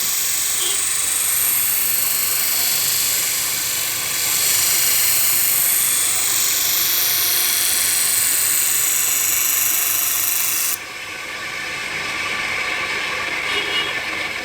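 Scissor blade being ground on a power grinder: a steady, loud, high-pitched grinding hiss that drops suddenly to a much quieter grinding sound about eleven seconds in.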